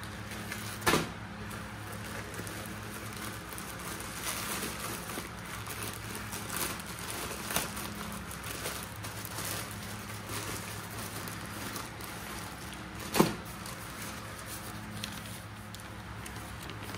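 Canvas messenger bag being handled: light rustling with two sharp clicks, the louder one about three-quarters of the way through, over a steady low hum.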